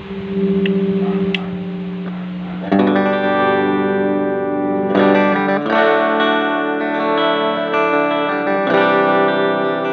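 Fernandes TEJ Telecaster-style electric guitar being played. A single held note wavers for the first couple of seconds, then strummed chords ring out from about three seconds in, with a new chord every few seconds.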